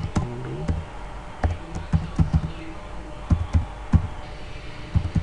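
Typing on a computer keyboard: single keystrokes at an uneven pace, several to a second in spurts. A brief hum of a voice comes just after the start.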